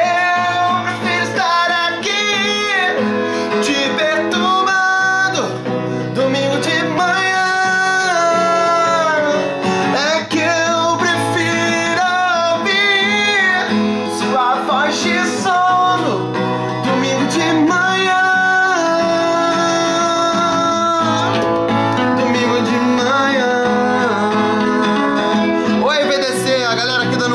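Music: a song with a voice singing a melody over guitar accompaniment.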